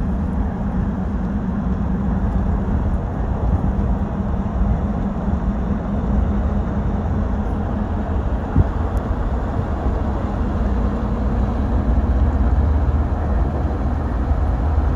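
Vehicle driving: a steady engine and road rumble that starts suddenly and holds without a break.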